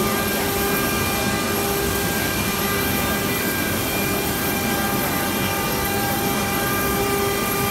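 CNC stone-carving router's spindle cutting into a sandstone slab: a steady machine whine made of several fixed tones over a constant rushing noise, with no change in pitch or level.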